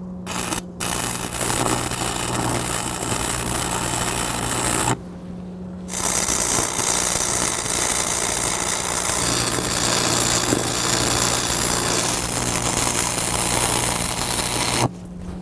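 Stick (arc) welding with a Lincoln 225 welder: the arc crackles steadily as a bead is run on the steel beam. It opens with a couple of short sputters, stops for about a second roughly five seconds in, then runs on until just before the end, over a steady low hum.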